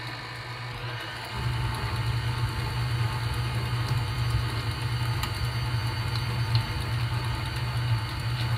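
Electric tilt-head stand mixer running steadily, its beater churning a wet batter of melted butter, sugars and eggs; the hum gets louder about a second and a half in.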